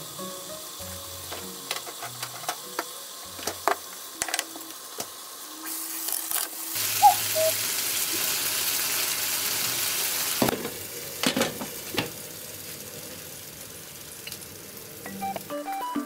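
Yangnyeom chicken sizzling loudly in its sauce in a frying pan for about five seconds in the middle, starting and stopping abruptly. Soft background music with plucked, piano-like notes runs under it, with a few light clicks before the sizzle.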